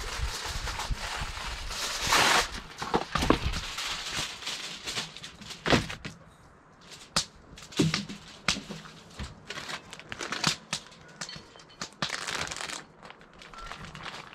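Plastic bags and aluminium foil crinkling in irregular bursts as they are handled.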